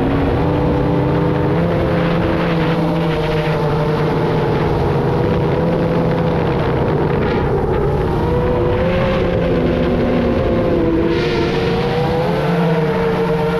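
FPV quadcopter's motors and propellers whining, with several pitches that rise and fall as the throttle changes, over a steady rush of wind.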